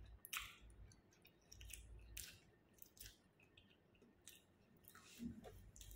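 Faint chewing of soft flatbread: a few quiet mouth smacks and clicks scattered over a near-silent background.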